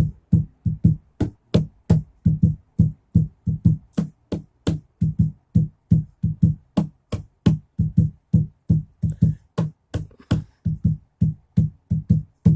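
Hands drumming on a bench in a steady rhythm of about three strokes a second. Deep thumps are mixed with sharper slaps, and the drumming stops near the end.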